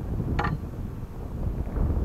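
Wind buffeting the microphone as a gusty low rumble, with one brief high squeak about half a second in.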